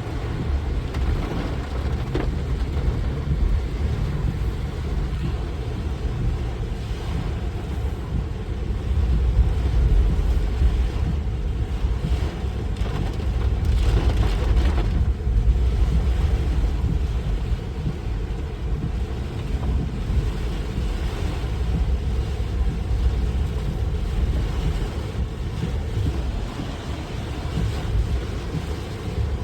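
A vehicle driving, with a steady low rumble of engine and road noise and an even hiss over it, a little louder around the middle.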